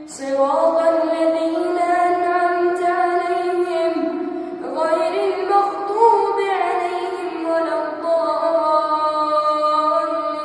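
A boy's voice reciting the Quran in a melodic, drawn-out style, holding long notes that glide between pitches. There is a brief pause about four seconds in, then a new phrase.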